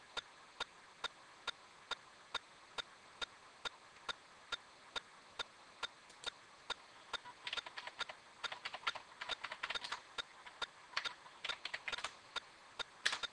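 Computer keyboard typing in quick irregular bursts from about seven seconds in until near the end. Under it, a faint steady ticking runs at a little over two ticks a second.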